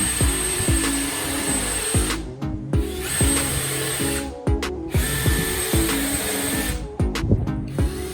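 A small electric power tool's motor runs in three spells of one to two seconds, each with a steady high whine, over background music with a steady beat.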